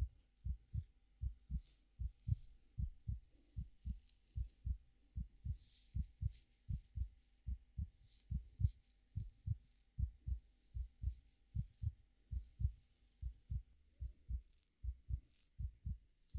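Heartbeat going steadily in double thumps (lub-dub), with soft, irregular rustling swishes of fingers running through hair laid over it.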